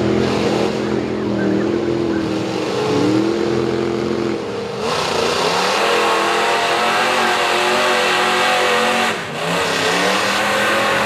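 GMC mud truck's V8 on open headers revving as it drives its 44-inch tires through deep mud. The engine holds a steady note for the first few seconds, then climbs and runs harder with the pitch swinging up and down from about five seconds in, easing briefly a little past nine seconds before picking up again.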